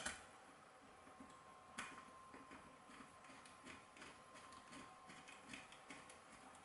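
Faint small clicks and ticks of a long screw being turned in by hand through a Zesty Nimble extruder's housing, with a sharper click at the start and another about two seconds in.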